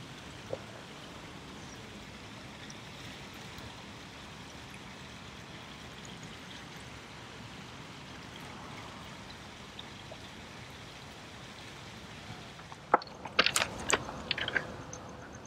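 Steady soft hiss of water lapping along a rocky lakeshore. About 13 seconds in, a short cluster of sharp clicks and knocks as the rod and spinning reel are handled.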